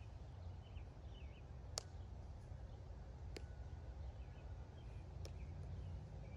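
Faint outdoor ambience: a steady low rumble with a few faint bird chirps and three soft clicks spaced about a second and a half apart.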